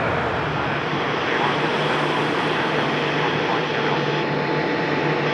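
Jet airliner engines on low final approach to land: a loud, steady rushing hum that eases slightly just after the loudest moment, then holds.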